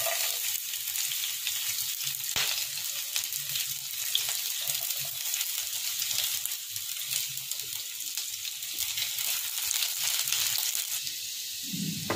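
Chopped garlic frying in hot oil in a wok: a steady sizzle with many small crackles.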